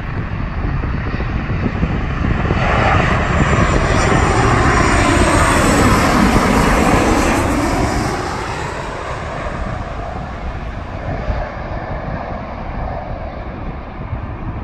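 Royal Air Maroc Boeing 737-800 on final approach passing low overhead, the whine and rush of its CFM56-7B turbofan engines. It builds from about two seconds in, is loudest around the middle with a sweeping dip in pitch as it passes, then fades.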